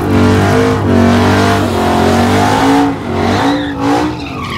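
Car engine revving hard at the drag strip's starting line, with tyres squealing and spinning in a burnout. The sound drops back about three seconds in.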